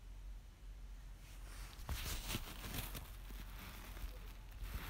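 Faint rustling with a few soft clicks over a low steady hum, picking up about a second and a half in.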